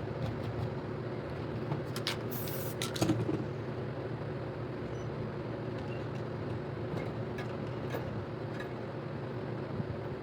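Steady low hum throughout, with scattered light clicks and one short spray-paint can hiss about two and a half seconds in, followed by a small knock.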